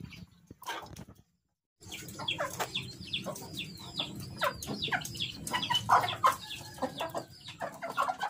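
Chickens clucking and calling: many short calls, each falling quickly in pitch, overlapping densely. The sound cuts out completely for about half a second near the start.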